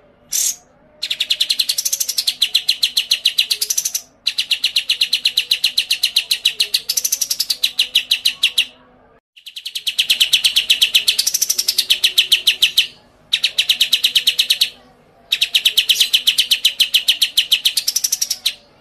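A songbird giving five long, rapid trills of evenly repeated high notes, each lasting about three seconds, with short pauses between them.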